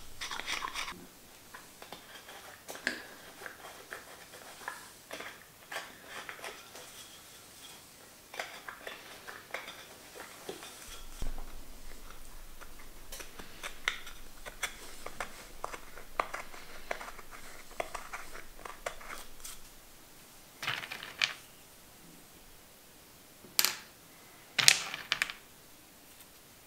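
Hook knife paring a shallow hollow in an oak blank: short, irregular scraping cuts of the blade across the wood grain. Near the end the carving stops and a few louder sharp clacks follow.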